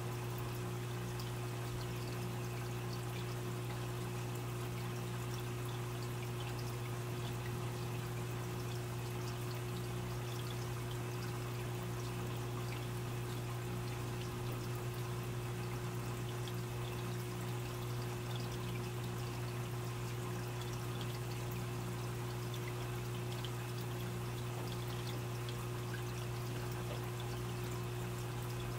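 Aquarium water trickling and splashing steadily, as from a running filter outflow, over a constant low hum.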